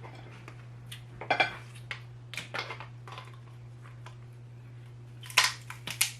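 Lobster shells being cracked and picked apart over plates: a string of sharp cracks and clatters, loudest about a second and a half in and again near the end, over a steady low hum.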